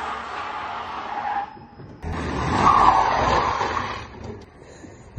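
Fiat Punto's tyres skidding on asphalt under hard driving, with the engine running beneath. There are two stretches: one fades out about a second and a half in, and a second, louder one runs from about 2 s to 4 s in.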